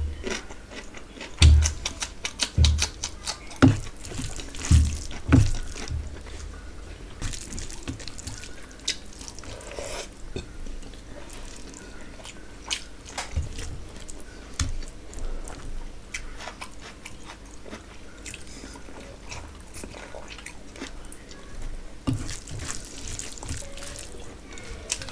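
Close-miked wet chewing and lip smacking of rice and curry eaten by hand, with moist clicks and the squelch of fingers mixing rice into gravy on a steel plate. There are several low thumps in the first few seconds.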